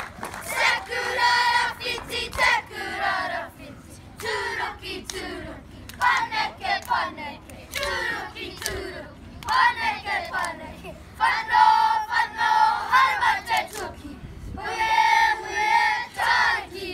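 A group of children chanting and singing in unison in a kapa haka performance, in short loud phrases with brief pauses between them.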